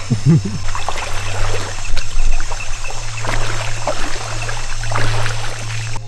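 Water trickling and splashing in many small irregular splashes, over a steady drone of insects.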